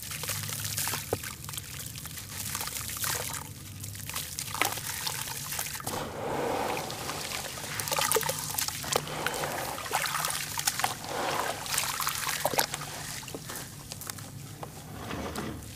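Hands crumbling a chunk of charcoal ash over a tub of water, the loose grit pouring and trickling into the water with many small crackles. Later the hands squeeze and slosh the wet ash mush in the water.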